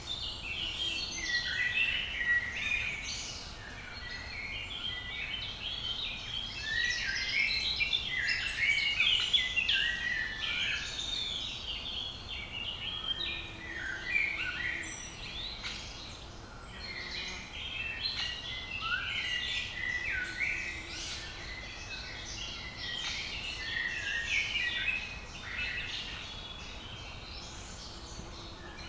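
Many songbirds singing over one another in a dense, continuous chorus of short chirps and phrases.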